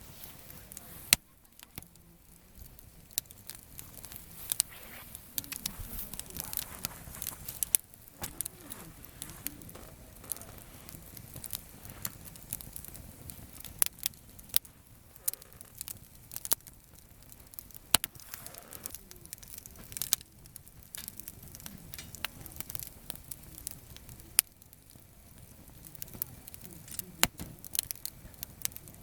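Campfire of gathered firewood crackling, with irregular sharp pops and a handful of louder snaps, the loudest about a second in.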